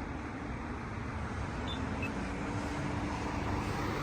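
Road traffic passing, a steady rumble of car engines and tyres, with a faint hum holding one pitch for about two seconds in the middle.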